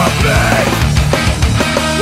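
Loud heavy rock band playing: drums and crashing cymbals under guitars, with notes bending up and down in pitch.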